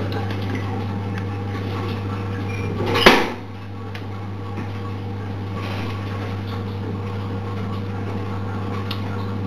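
A steady low electrical-sounding hum, with a single loud knock about three seconds in, after which the background is a little quieter.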